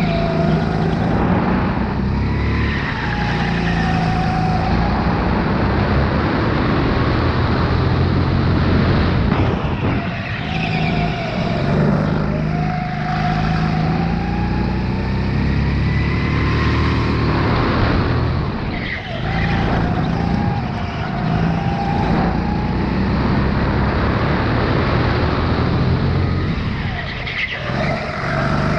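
Sodi RX8 rental go-kart's four-stroke engine at full throttle on a hot lap. Its pitch climbs on each straight and drops sharply when the throttle is lifted for a corner, several times over.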